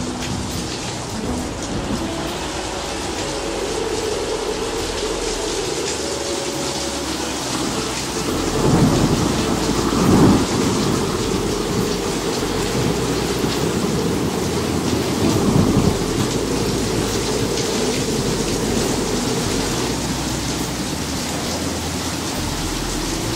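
Steady rain with rolling thunder, swelling loudest a little before the middle and again about two thirds of the way through.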